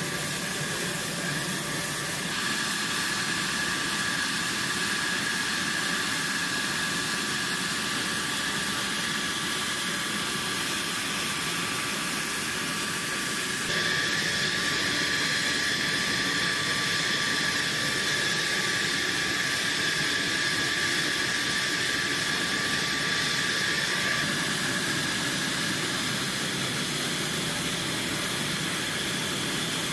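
F-16 jet engine running at idle on the ground: a steady hiss with a high whine held on a few tones. The whine shifts slightly about two seconds in, again around fourteen seconds and near twenty-four seconds.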